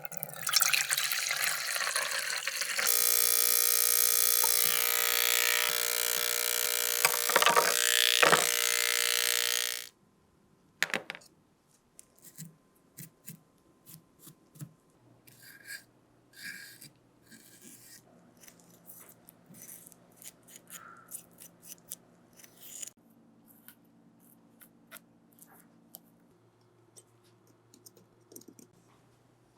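A motor runs loudly and steadily for about ten seconds and cuts off suddenly, followed by scattered light clicks and taps over a faint hum.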